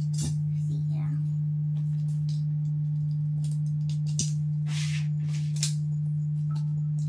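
A steady low hum, with scattered rustling and clicking as furniture parts, screws and packaging are handled.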